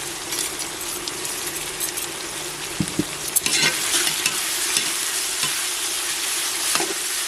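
Sliced onions sizzling steadily in hot oil in a pressure cooker, stirred with a spoon, with a few scrapes against the pan about halfway through.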